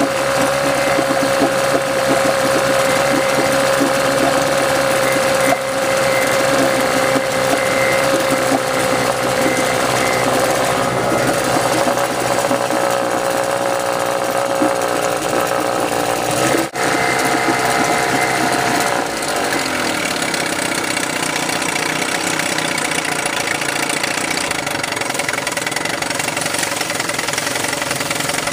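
Force (Chrysler) 9.9 hp twin-cylinder two-stroke outboard running steadily with its lower unit in a tank of churning water. It runs with a newly replaced water-pump impeller, pumping cooling water and not overheating. About two-thirds of the way in it runs a little quieter.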